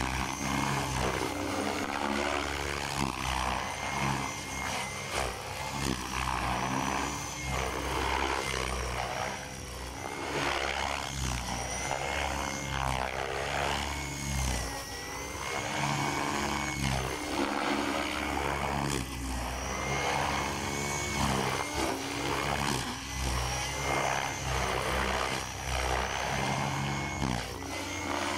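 Align T-Rex 600 electric RC helicopter flying aerobatics: the high whine of its motor and gears over the buzz of the rotor blades, rising and falling in pitch as it manoeuvres and moves about.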